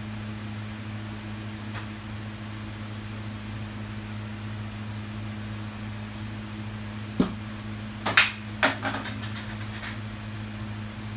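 A kitchen appliance's steady low electrical hum, with a sharp click about seven seconds in and a short run of clicks and knocks around eight to nine seconds in.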